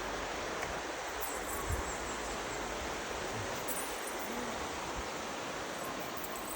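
Steady rushing hiss of outdoor ambience, with a faint low thump about two seconds in.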